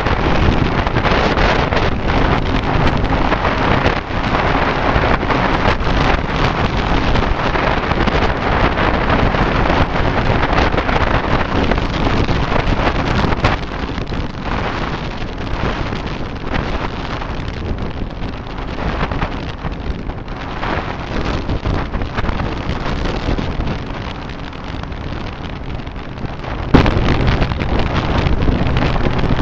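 Heavy wind buffeting on the microphone of a moving Triumph Street Triple motorcycle, with the engine's steady drone underneath. The wind eases about halfway through and comes back suddenly loud near the end.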